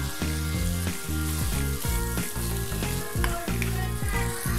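Prawn malai curry masala sizzling in a wok, stirred with a wooden spatula near the end, over background music with a repeating bass line.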